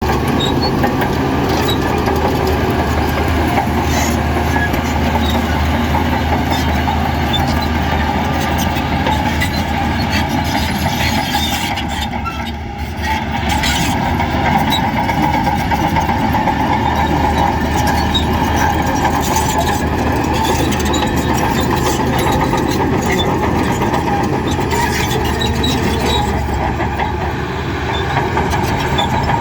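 Heavy diesel engine of earthmoving machinery running steadily under work, with scattered clanks and clicks. The sound dips briefly about twelve seconds in.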